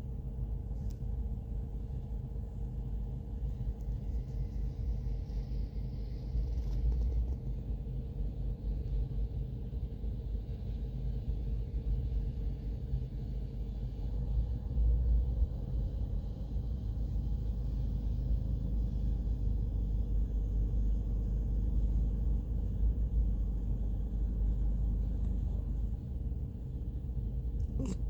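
Corgi sleeping and making tiny snores over a steady low rumble.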